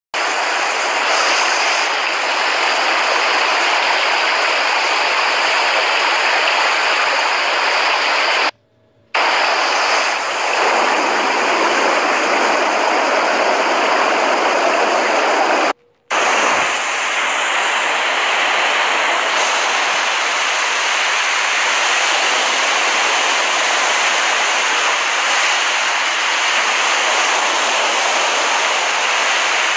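Relaxation-app recording of ocean waves washing on a beach, a steady rushing wash, which cuts out abruptly twice for a moment, once for about half a second.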